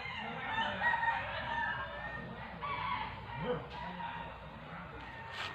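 Rooster crowing: long, drawn-out calls held on a steady pitch.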